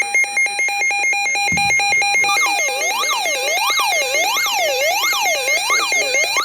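Electronic emergency alert tone: rapid pulsing beeps for about two seconds, then a siren-like tone sweeping up and down about once every 0.7 s.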